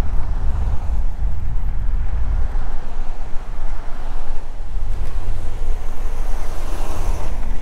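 Wind rumbling on the microphone of a camera on a moving bicycle: a steady low rumble with a rushing hiss, which swells brighter near the end.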